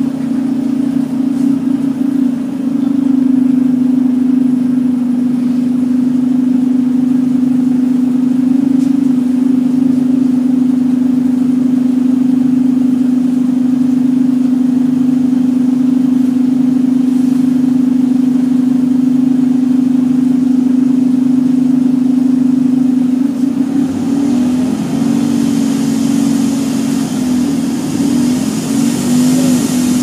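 Volvo-chassis Wright Eclipse Urban bus's engine cooling fan running with a loud, steady drone, heard from inside the rear of the bus over the engine and road noise. About 24 seconds in, the drone becomes unsteady and wavers in pitch.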